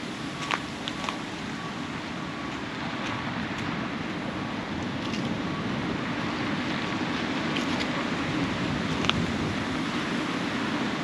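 Steady hum of city traffic, slowly growing a little louder, with a few faint, brief high ticks scattered through it.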